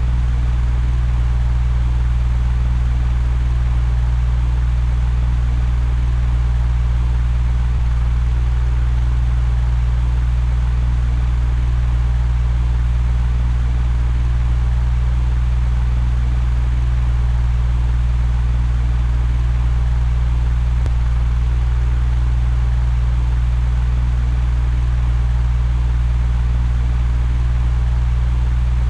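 Electric fan running steadily: an even rush of air over a strong, constant low hum.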